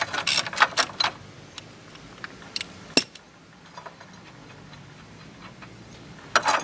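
Ratchet wrench clicking as it backs out a steering box bracket bolt on a 1991 GMC Jimmy frame: a quick run of clicks in the first second, then a few scattered light metallic clicks as the loosened bolt and washers are handled, and a short burst of clicking near the end.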